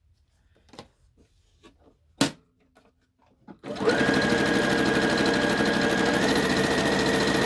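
A few faint handling clicks and one sharp click, then an electric sewing machine starts about halfway through and runs steadily, stitching a seam in a cloth face mask. Its motor picks up speed slightly near the end.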